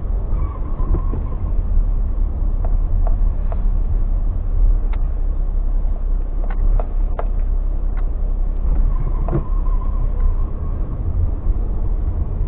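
Suzuki Alto 800 being driven, heard from inside the cabin: a steady low engine and road rumble, with a few faint scattered clicks and rattles.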